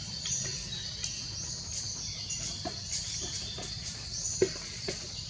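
Outdoor natural ambience: high-pitched chirps over a steady high buzz, with a low rumble of background noise and a few scattered light taps, the sharpest about four and a half seconds in.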